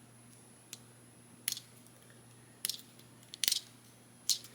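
A few small, sharp plastic clicks and taps from handling a Transformers Deluxe-class action figure as its hinged chest compartment is opened. The loudest is a quick cluster of clicks about three and a half seconds in.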